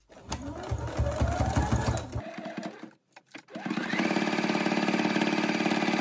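Electric domestic sewing machine stitching through fabric: a short run whose pitch rises as it speeds up, stopping about two seconds in, then after a brief pause it starts again, climbs quickly and runs steadily at speed.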